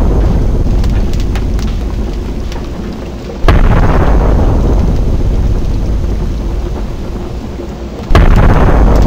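Explosions booming one after another, each hitting suddenly and rumbling away over several seconds. The rumble of one boom is fading at the start, a second hits about three and a half seconds in, and a third about a second before the end.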